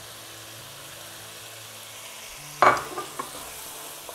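Chopped onion, green pepper and tomato sizzling in a frying pan as they are stirred with a wooden spatula. About two and a half seconds in comes a loud knock, then two lighter ones.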